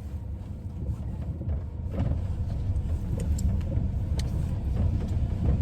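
Car engine running, a low steady rumble heard from inside the cabin, with a few faint clicks.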